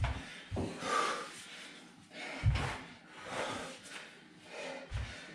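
A man breathing hard after a dumbbell lunge set, with loud breaths about once a second. Now and then there is a short dull thump.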